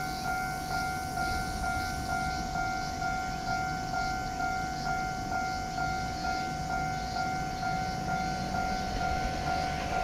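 Japanese railway level crossing warning bell ringing in a steady, evenly repeating two-tone clang while the crossing is active, signalling that a train is approaching.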